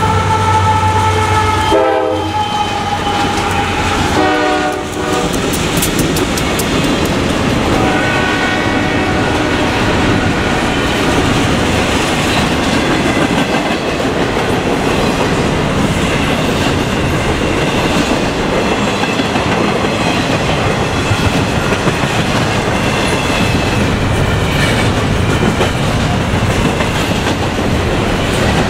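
Freight locomotive's multi-note air horn finishing a grade-crossing signal, with two shorter blasts in the first five seconds. Then the locomotive passes and a long string of double-stack container cars rolls by with a steady rumble and clatter of wheels on rail.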